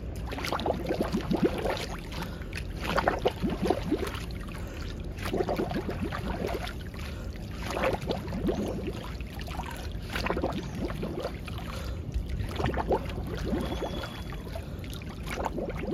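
A swimmer doing bubble bobbing: head dipping under the water and coming up again, with splashing and bubbles blown out through the nose underwater, repeating about every two and a half seconds. This is the beginner's bubbles breathing drill, breathing in through the mouth above water and out through the nose below.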